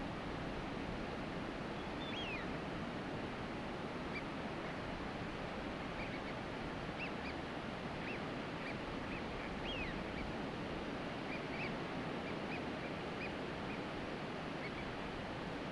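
A flock of wintering ducks, mostly Eurasian wigeon and northern pintail, giving many short whistled calls, a few of them falling in pitch, over a steady wash of shoreline noise.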